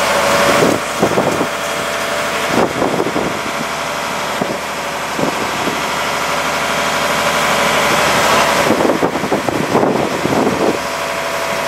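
Engine of the heavy machine lifting the lathe, running steadily with no change in pitch.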